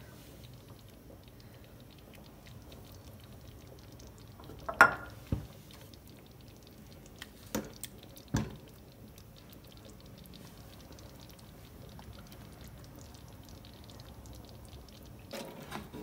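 Thickened chicken corn soup simmering in an aluminium pot, with faint steady bubbling. A steel ladle knocks sharply against the pot a few times: twice about five seconds in and twice around eight seconds in. Stirring starts near the end.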